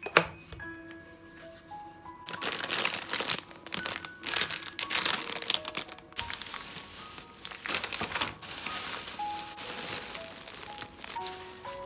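Crinkling and rustling in bursts, as of something being handled or unwrapped, over soft background music with slow, single held notes.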